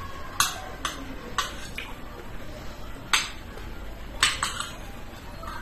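Metal spoon and fork clinking against a plate while eating, about eight sharp clinks at uneven intervals, the loudest near the start, about three seconds in and just after four seconds.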